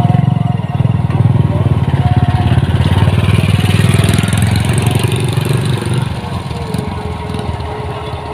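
Combine harvester's diesel engine running steadily, with fast even firing pulses. It eases slightly about six seconds in.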